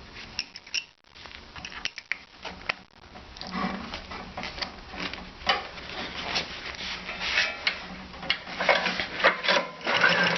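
Snowblower engine being cranked over with its spark plug out, a fast mechanical clicking and rattling, for a spark check on its original plug. It starts about three and a half seconds in and grows denser and louder toward the end.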